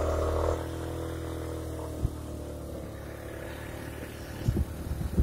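Motorcycle engine easing off after a burst of revs: the note drops about half a second in and runs on at low revs as the bike rolls along. There is a single knock about two seconds in and a few rattles near the end.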